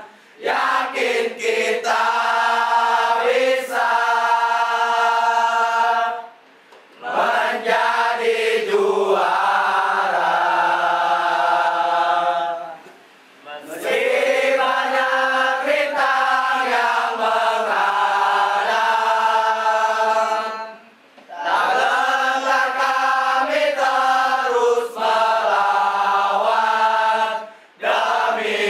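A group of voices chanting in unison in long held phrases, breaking off into short pauses about every six to eight seconds.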